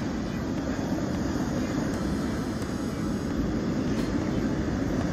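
Ocean surf breaking on the shore, a steady rumbling roar with no clear pitch.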